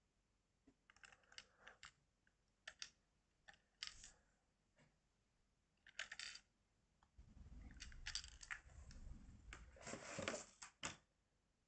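Faint scattered clicks and clacks of hard plastic toy Shinkansen cars being handled and set down on a wooden floor. A low rumble with denser clattering comes about seven to ten seconds in.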